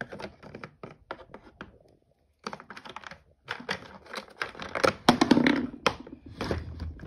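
Quick clicks, taps and scrapes of hard plastic handled close to the microphone: a plastic toy dollhouse being touched and moved. There is a short pause about two seconds in, and the loudest rattling comes around five seconds in.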